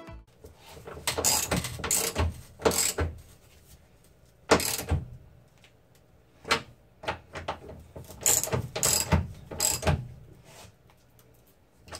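Ratchet wrench clicking in short, irregular bursts of swings as it turns the nuts on a rear strut's top mount.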